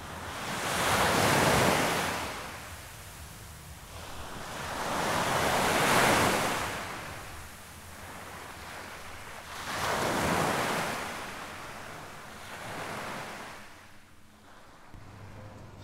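Ocean surf washing in: four swells of waves, each building and falling away over two or three seconds about four seconds apart, the last one smaller.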